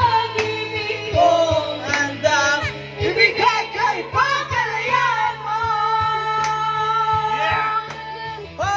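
A song playing, with a high sung voice carrying the melody over a steady bass line and beat. There is one long held note about midway through.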